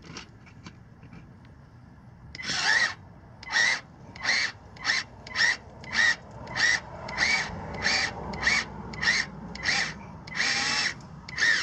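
Cordless drill/driver driving a security screw up into a metal underbody shield in short trigger bursts. About fourteen whirring pulses, roughly half a second apart, start about two seconds in, and the last couple run longer.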